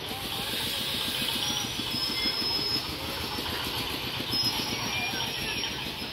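Passenger express train coaches rolling past: a steady rumble and clatter of steel wheels on the rails, with a few brief high squeals.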